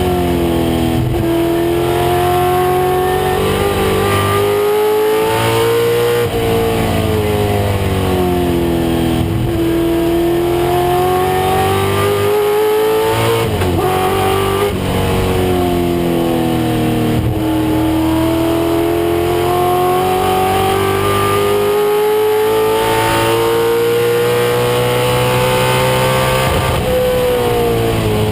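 1996 Ford Mustang race car's engine at full racing load, the revs climbing steadily and then dropping, over and over, with a few sharp drops as it shifts gears.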